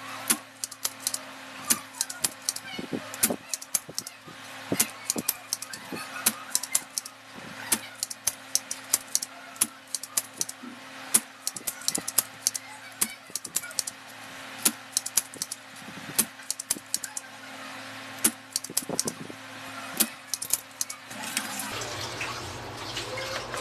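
Many sharp, irregular clicks and taps of desoldering tools (a spring-loaded solder sucker and pliers) working on an inverter circuit board, over a steady low hum. Near the end the clicking stops and the board is picked up and handled with a rustle.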